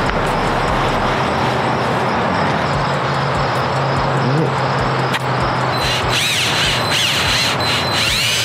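A steady loud rushing noise, then from about six seconds in a cordless drill spinning a foam polishing pad against a plastic headlight lens, its motor whine rising and falling in pitch as the trigger is worked.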